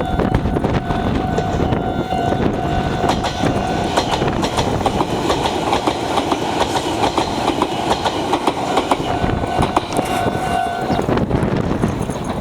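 Meitetsu Nishio Line express train passing close by over a level crossing, its wheels clacking over the rail joints in a steady run of clicks. Under it, the crossing's warning bell keeps ringing and stops about eleven seconds in.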